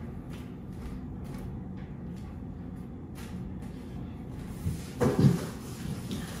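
A cardboard box being handled on the floor: a short, loud burst of scraping and thudding about five seconds in, over a steady low hum.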